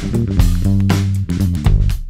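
Background music: a guitar and bass-guitar instrumental over a steady, punchy beat.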